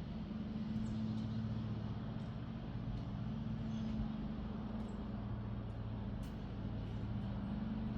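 Steady low mechanical hum, even throughout, with a faint sharp click about six seconds in.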